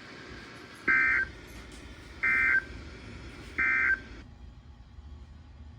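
Emergency Alert System end-of-message SAME data tones: three short, identical buzzy bursts about a second and a half apart, the signal that marks the end of the alert broadcast. The background hiss cuts off shortly after the last burst.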